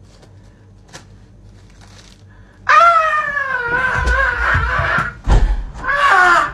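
A long, loud, high-pitched wailing cry that starts abruptly under three seconds in and slowly falls in pitch, with low thuds underneath, then a second shorter cry near the end.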